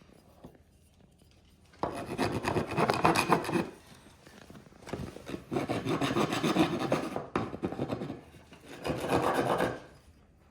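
Hand file rasping across wood in three bouts of quick back-and-forth strokes, flattening a small bump on a board.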